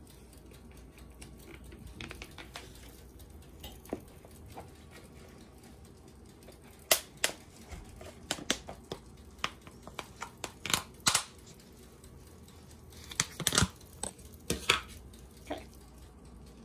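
Kitchen handling sounds: irregular clicks, taps and rustles of food containers and packaging being picked up and opened. Most of the sharper knocks come in the second half.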